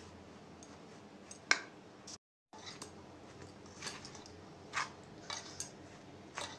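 Hand rubbing and mixing atta, semolina and oil in a steel bowl: a faint rustle of crumbly flour with a few short, sharp clicks of the hand against the bowl. The sound drops out completely for a moment about two seconds in.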